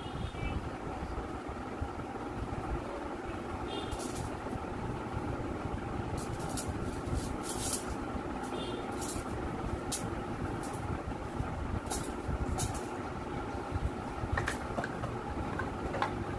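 Steady low mechanical rumble with a hum running underneath, with scattered sharp clicks through the middle.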